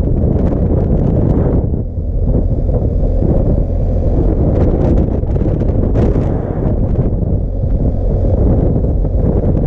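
Wind buffeting the microphone of a camera on a moving motorcycle, a loud, steady rush. Under it runs the BMW R1250 GS Adventure's boxer-twin engine at road speed.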